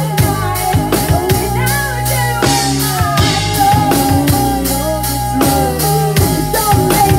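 Live rock band playing: a drum kit with regular snare and bass drum hits, electric guitar, and a woman singing.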